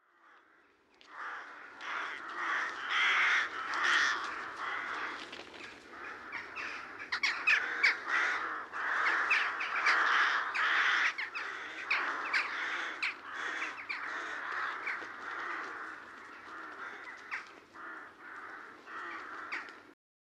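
Many crows cawing at once, a dense overlapping chorus of calls that cuts off abruptly near the end.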